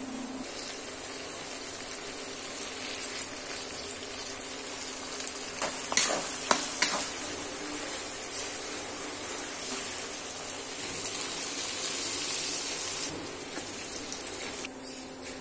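Chopped tomatoes and masala sizzling as they fry in hot oil in a pan, with a few sharp knocks about six seconds in as it is stirred. The sizzle gets louder, then eases off about two seconds before the end.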